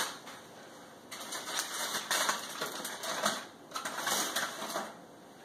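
Aluminium foil crinkling and rustling in irregular bursts as the foil covering on a pan is handled and pulled back, starting about a second in and stopping shortly before the end.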